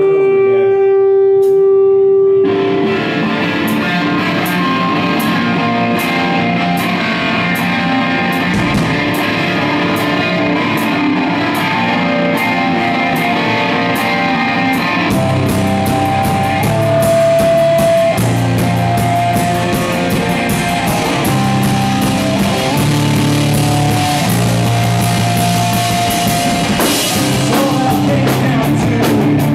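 Live rock band playing loud: distorted electric guitars, bass guitar and drum kit. A single held note rings alone for the first couple of seconds, then the full band comes in with steady drum hits, and the bass line gets heavier about halfway through.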